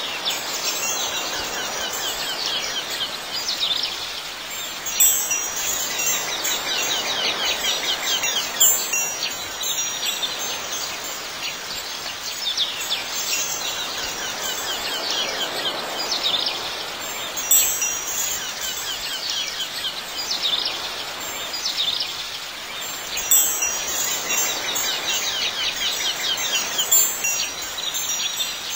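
Wind chimes tinkling continuously, swelling and fading every few seconds with a few brighter, louder strikes.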